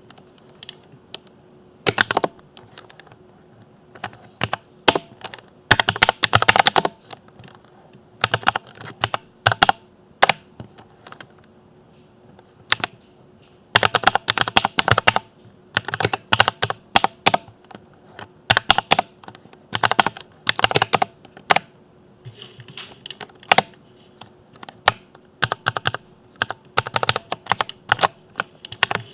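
Typing on a compact mechanical keyboard with lubed Cherry MX linear switches: keystrokes come in irregular bursts of quick clacks, broken by pauses of a second or two.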